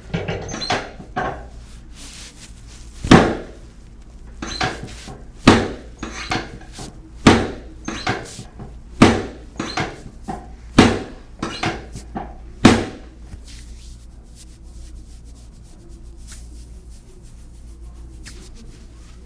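Chiropractic drop table's spring-loaded drop sections clacking down under the chiropractor's thrusts, six loud clacks about two seconds apart with lighter knocks between, during drop-table adjustments of the sacrum and lumbar spine. The clacks stop about two-thirds of the way through.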